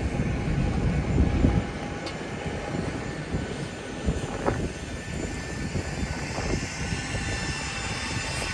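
Boeing 737-800 airliner's jet engines running as a steady low rumble, loudest for the first second and a half, with a few short knocks, one about four and a half seconds in.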